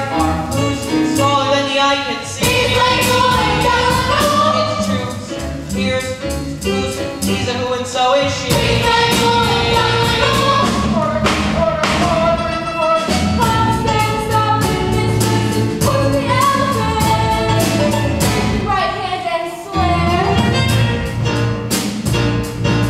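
Cast singing a musical-theatre number together, with instrumental accompaniment keeping a steady beat under the melody.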